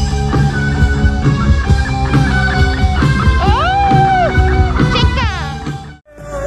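Rock music led by guitar, with sliding and bending notes. It drops out abruptly about six seconds in, and music starts again at once.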